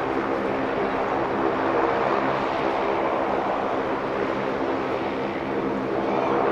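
Boeing 747-430's jet engines running steadily: an even rushing noise with a low, steady hum underneath, swelling slightly near the end.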